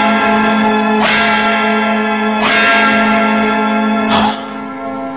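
A bell tolling three times, about a second and a half apart, each stroke ringing on over a steady low tone, as part of a film soundtrack.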